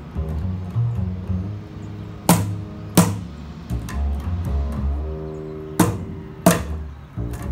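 Double bass played pizzicato, a low plucked jazz bass line, with a cajon: light taps and two pairs of sharp accented hits, the hits in each pair about two-thirds of a second apart.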